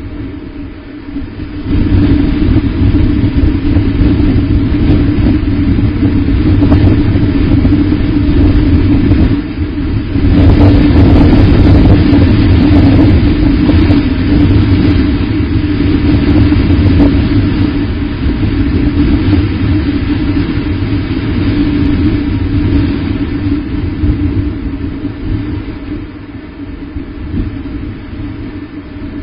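Wind rumbling and buffeting on an outdoor nest-camera microphone. It rises sharply about two seconds in, is strongest in a gust about ten to fifteen seconds in, and eases near the end.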